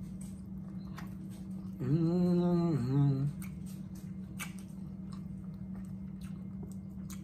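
Faint chewing and small mouth clicks of people eating fried catfish with their fingers, over a steady low hum. A hummed "mm-hmm" of enjoyment comes about two seconds in and is the loudest sound.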